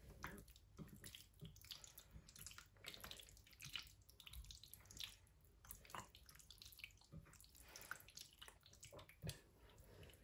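Faint, soft wet squelching of hands mixing chicken thigh pieces through a thick, oily spice marinade in a glass bowl, in small irregular squishes.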